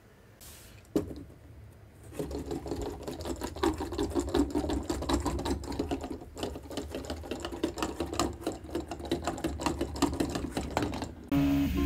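3D-printed Wall-E walking robot's small motor and plastic gear train running, a rapid steady clatter of clicks as its legs step. It starts about two seconds in after a single click and cuts off suddenly just before the end.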